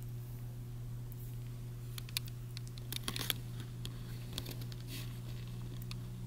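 Faint scattered soft ticks and rustles of newborn kittens squirming on a plush blanket, starting about two seconds in and thickest a second later, over a steady low hum.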